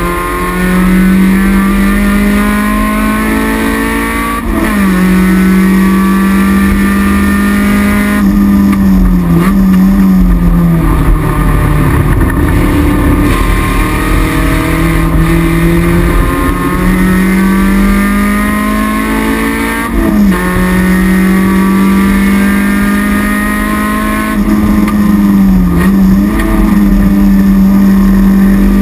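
Toyota MR2 (AW11) race car's 4A-GE four-cylinder engine, heard from inside the stripped cabin, pulling hard under racing load. Its pitch rises and falls, with several sudden drops at gear changes.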